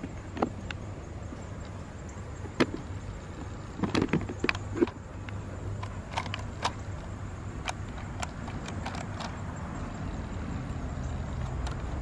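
Scattered light clicks and knocks of a hand handling a plastic toy RC monster truck's body shell and roll cage, with a quick cluster of them about four seconds in. A steady low rumble sits underneath.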